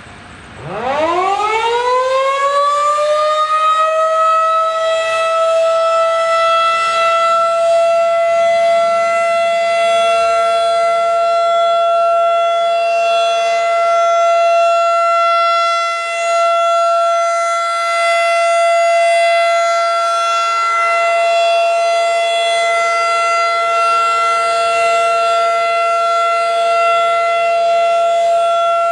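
Federal Signal 2001-DC rotating outdoor warning siren winding up for its weekly tornado siren test: the pitch climbs steeply for a few seconds from about half a second in, then holds one steady, loud wail, dipping briefly in level now and then as the horn turns.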